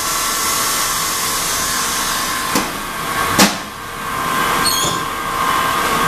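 Steady machinery noise of a marble-slab processing line, a loud hiss with a held tone in it. Two sharp knocks come a little under a second apart about halfway through, and the noise dips briefly after the second.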